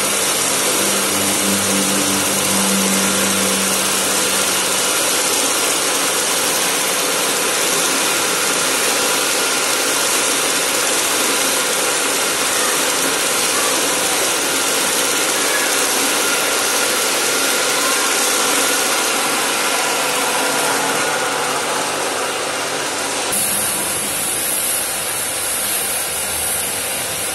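Gravity-feed paint spray gun hissing steadily as compressed air atomises paint, with a low hum under it for the first few seconds.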